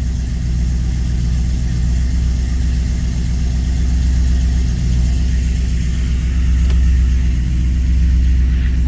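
Holden 308 V8 idling at a slightly raised idle through extractors and a newly welded exhaust, running steadily; it sounds heaps better now, which the owner puts down to what might have been a loose plug lead. It gets a little louder about six seconds in.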